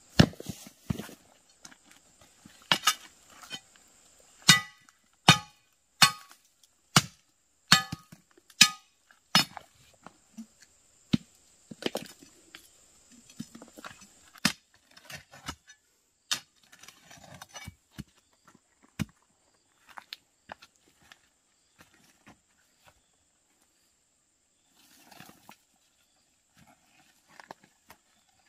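A run of sharp, ringing strikes, roughly one a second for several seconds, followed by scattered quieter knocks.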